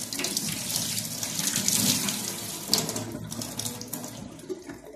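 Kitchen tap running into a sink, a steady rush of water that grows quieter over the last two seconds.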